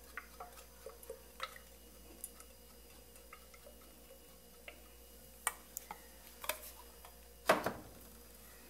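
Olive oil being poured from a bottle into an aluminium pot: faint, scattered ticks and clicks, with one louder knock about seven and a half seconds in.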